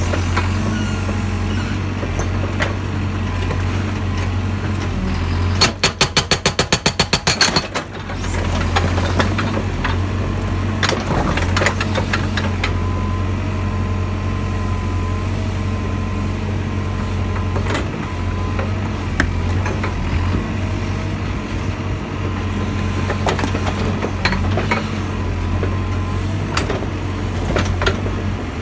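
CAT 432F backhoe loader's diesel engine running steadily, with an OMP TM125SA hydraulic breaker hammering rock in one burst of rapid, even blows, about ten a second, for about two seconds some six seconds in. Scattered single knocks of steel on stone fall elsewhere.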